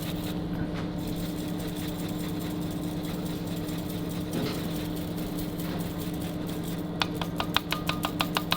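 Steady mechanical hum of kitchen equipment, holding two even tones. About seven seconds in, a quick run of light clicks or taps, several a second, joins it.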